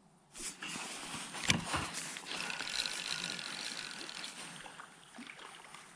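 Fixed-spool fishing reel being wound in, a steady whirring of its rotor and gears, with a single click about one and a half seconds in.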